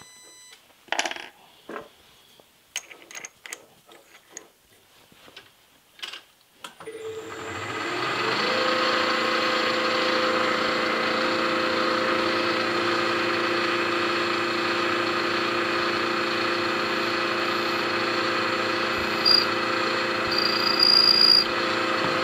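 A few light clicks and knocks as a tool is fitted in the spindle by hand. About seven seconds in the spindle motor starts and then runs with a steady hum and whine. Near the end a small drill spots an aluminum casting boss, with a short high squeal and then a longer one as it cuts.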